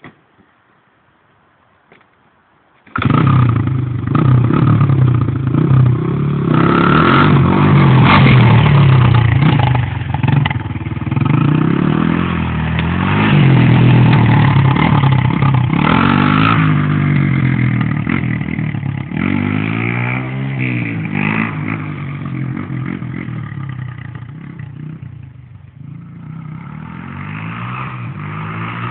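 1998 Honda XR200R dirt bike's single-cylinder four-stroke engine revving up and down as it is ridden, coming in abruptly after about three seconds of near silence. It fades as the bike moves off and grows louder again near the end.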